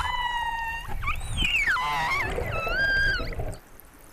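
Killer whales calling underwater: three long, high calls with a steady pitch, the middle one rising and then falling, over a low murmur of water. The calls stop about three and a half seconds in. They are excited reunion calls, cries of joy as the narration has it.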